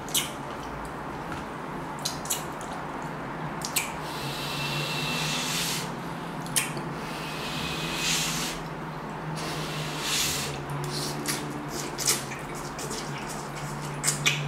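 Instant ramen noodles being slurped, with longer hissy sucking stretches several times, between wet mouth sounds and sharp clicks of a metal fork against a plastic container. A steady low hum sits underneath.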